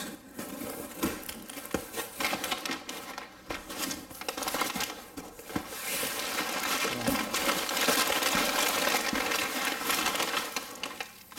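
Brown kraft packing paper crinkling and rustling as hands dig through it inside a cardboard shipping box. The crinkling grows louder and more continuous about halfway through.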